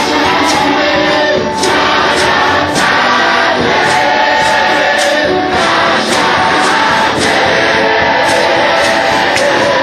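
Choir singing gospel worship music with a band, over a steady beat of about one stroke a second.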